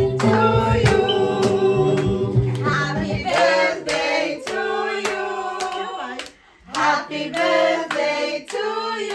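A group of adults singing a birthday song together with rhythmic hand clapping about twice a second. Recorded music with a bass line plays underneath at first and stops about three seconds in, and the singing breaks off briefly about six seconds in.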